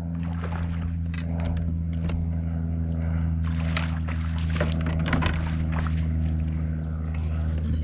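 A motor running steadily with a low, even hum and several overtones, with scattered clicks and knocks over it.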